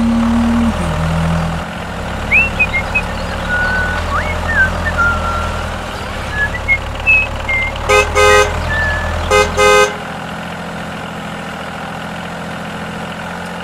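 Vehicle engine running steadily, with two short bursts of horn honking about two-thirds of the way through. Just after the honks the deep part of the engine drone drops away, leaving a lighter steady hum.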